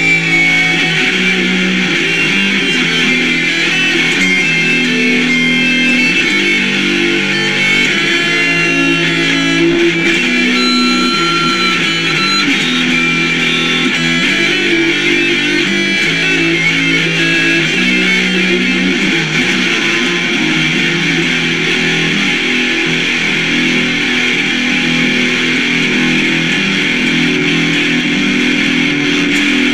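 Rock music led by strummed electric guitar with bass, playing at a steady loud level and stopping at the very end.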